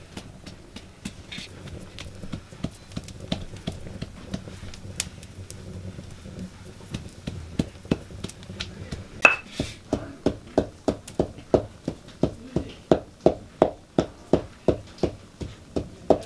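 Stone pestle pounding almonds in a stone mortar: scattered knocks at first, then from about halfway a steady pounding of about three strokes a second.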